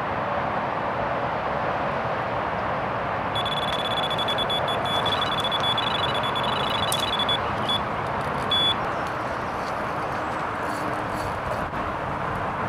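Electronic bite alarm sounding a run. About three seconds in, a high tone sounds in a long continuous note that breaks into fast stuttering beeps, the sign of a fish taking line off the rod. It stops after about five seconds with one last short beep, over a steady rushing background noise.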